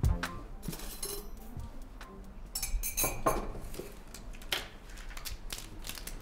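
Ceramic mug and plastic container handled while making coffee: scattered light clinks and knocks, with a brief run of clinks about halfway through. Quiet background music runs underneath.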